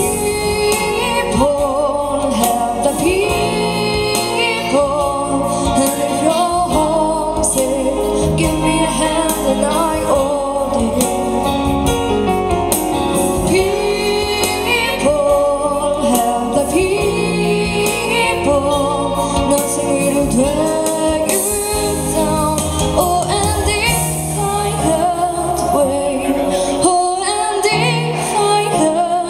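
Live music: a young woman singing a song into a microphone, amplified through a PA, over instrumental accompaniment.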